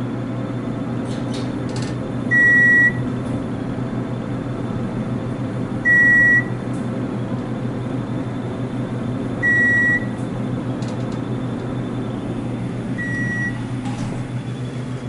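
An electronic beep of the kind likened to a microwave oven beep sounds four times, one short high tone roughly every three and a half seconds, over a steady low hum in the elevator cab.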